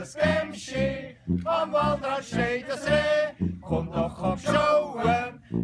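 A man singing a song in German without accompaniment, in sung phrases broken by short breaths.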